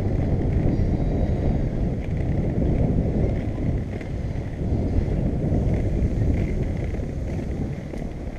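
Skate wheels rolling over a brick-paver sidewalk: a steady rough rumble with a rapid clatter from the paver joints, with wind buffeting the microphone.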